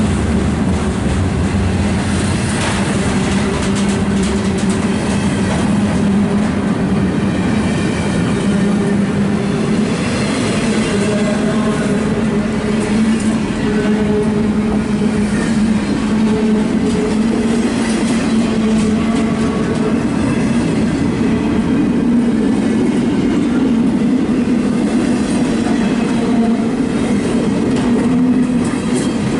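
Double-stack intermodal freight train's well cars rolling past close by: steel wheels running on the rails in a loud, steady rumble with a low hum underneath.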